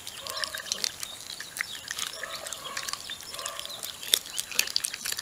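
Icelandic Sheepdog puppy chewing and crunching a piece of chicken wing, with many short sharp clicks of teeth on meat and bone. A dog barks a few times in the background.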